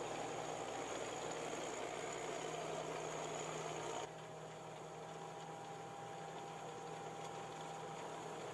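Small tracked combine harvester running steadily while cutting grain: an engine and machinery drone with a few steady tones. It drops abruptly in level about four seconds in, then carries on more quietly.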